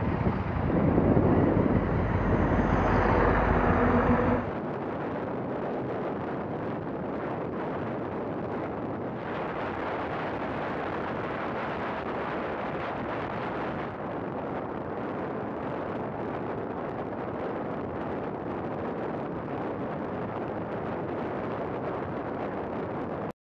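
Steady wind rush over the microphone of a camera on a moving Honda Africa Twin motorcycle, with road and engine noise beneath. The first four seconds or so are louder, with a low steady hum, then it settles to an even rush that cuts off suddenly near the end.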